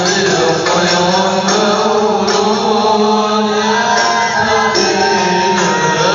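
A group of men's voices chanting a devotional maulid recitation in unison, with long held notes that shift in pitch.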